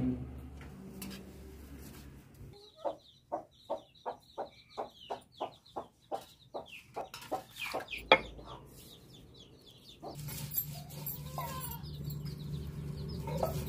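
A chicken clucking in a run of short calls, about two a second and getting quicker, ending in one loud call. From about ten seconds in, a steady low grinding of a stone roller worked over a stone slab.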